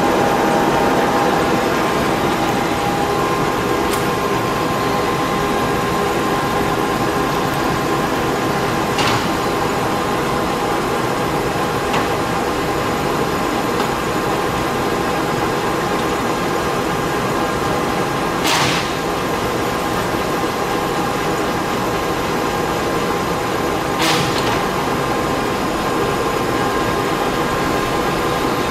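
1956 Warner & Swasey 3A saddle-type turret lathe running under power: its geared head and spindle turning with a steady mechanical whine of several tones, the pitch shifting a little about two seconds in. A few sharp clicks and clunks from the machine's controls cut through it now and then, the loudest about two-thirds of the way in.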